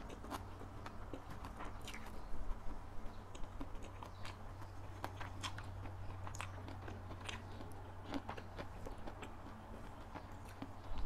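Close-miked chewing of a mouthful of sticky rice and spicy long-bean salad, with wet lip smacks and many sharp, irregular mouth clicks over a low steady hum.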